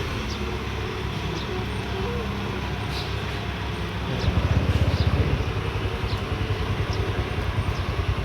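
Excavator diesel engine running steadily, then louder with a fast low throb from about four seconds in as it works harder.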